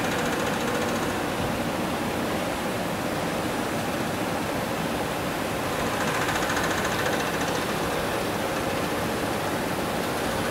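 Sheet-fed gravure printing machine running idle with its paper feeding in motion: a steady, dense mechanical running noise.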